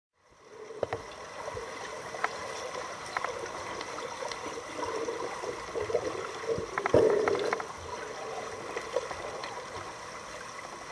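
Water gurgling and trickling in a steady wash, with scattered sharp clicks and a louder gurgle about seven seconds in; it fades in at the start.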